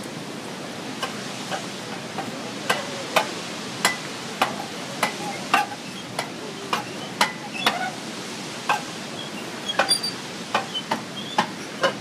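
Footsteps knocking on wooden boardwalk planks as several people walk, sharp irregular knocks about one to two a second, over a steady rushing background.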